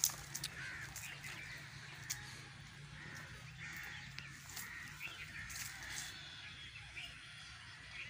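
Crows cawing on and off, with a few sharp clicks, the loudest right at the start.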